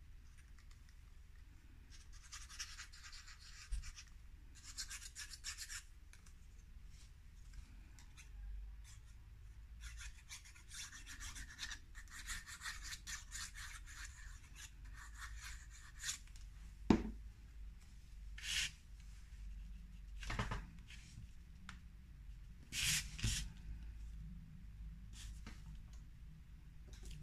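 Liquid glue bottle's applicator tip rubbing along a narrow strip of paper in two long spells of fast, fine scratching. It is followed by a few short rustles and taps as the paper strip is handled and pressed onto cardstock.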